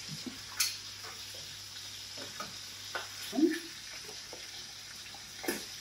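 Fat sizzling steadily in a frying pan, with a few sharp knocks and clatters as chopped carrots are tipped from a ceramic bowl into a metal roasting tin.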